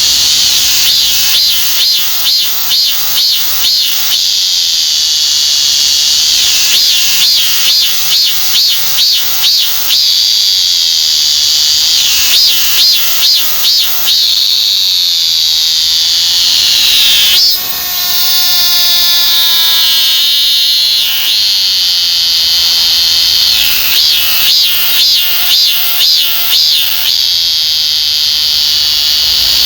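A chammaemi, the robust cicada (Hyalessa fuscata), singing loudly and close: phrases of rapid pulsed 'maem-maem' notes, about four a second, alternate with a steady high buzz. About halfway through, the song slides down in pitch into a lower falling note, then starts again.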